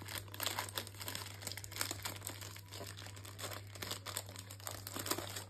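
Plastic ice lolly wrapper crinkling and tearing as it is pulled open by hand, a rapid run of irregular crackles.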